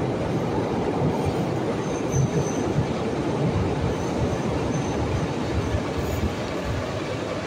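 Fiat Materfer subway train arriving at the platform: a steady low rumble of wheels on rail, with a thin, high wheel squeal about two seconds in and again around four to five seconds.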